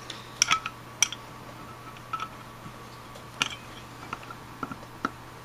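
Light clicks and taps of metal carburetor parts knocking together in the hands as a Rochester Monojet throttle body is fitted onto the carburetor body, a handful of separate clicks spread out over a few seconds.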